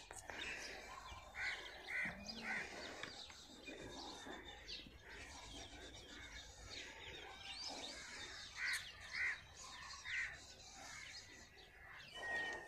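Birds chirping and calling, faint, with many short high chirps and a few louder short calls in two clusters, about two seconds in and again about nine seconds in.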